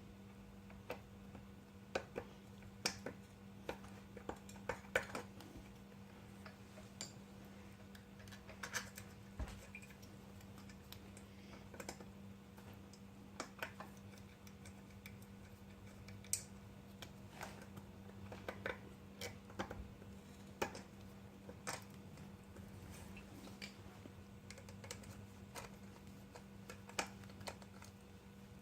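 Scattered, irregular light clicks and taps of small metal parts and hand tools being handled on a small motorized bike engine, over a steady low hum.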